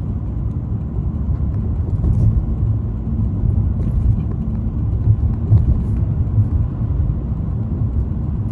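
Car driving along a road: a steady low rumble of tyres and engine with a faint steady hum.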